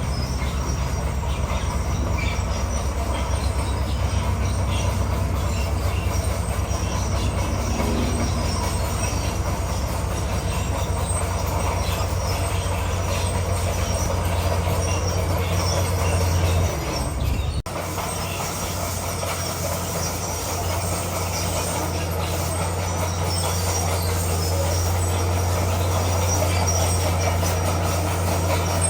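Bulldozer's diesel engine running steadily under load, with crawler track and machinery noise over it. The sound changes abruptly a little past halfway, where the footage is cut.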